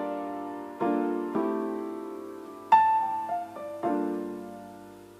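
Piano playing slow, sparse chords, each struck and left to fade, with a short run of higher notes about three seconds in.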